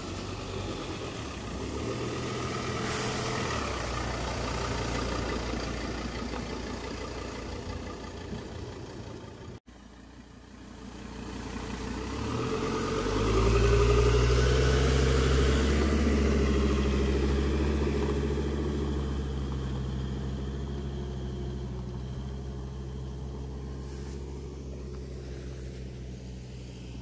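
Ford Endeavour 3.2 SUV's five-cylinder diesel engine running at low speed as it crawls through tall grass, growing louder as it passes close by about halfway through, then slowly fading. The sound cuts out briefly about a third of the way in.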